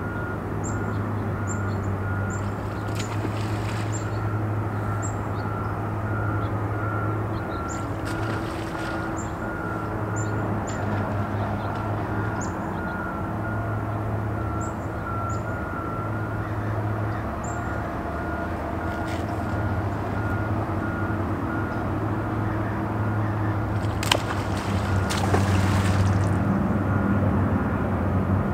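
Riverside ambience: a steady low engine rumble from traffic, with a vehicle's reversing beeper pulsing throughout. Small birds chirp in short high notes through the first half, and a few brief splashes come from salmon jumping.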